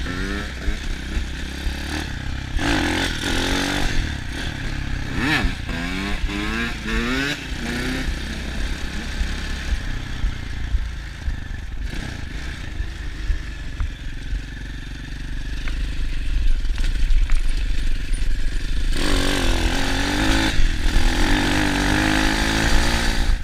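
Apollo 150 dirt bike engine revving up through the gears in several rising sweeps, easing off in the middle, then pulling hard again near the end. Wind rumbles on the microphone throughout.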